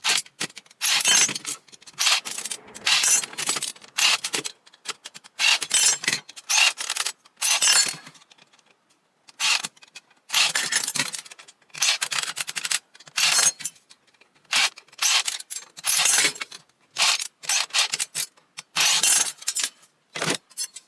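Metal ceiling fan parts clinking, jangling and scraping in short, irregular bursts as the cast aluminum housing and its screws are handled during disassembly.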